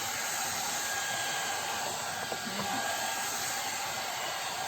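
One Step hot air brush (hair dryer and styler) running steadily, its fan blowing a constant rush of air.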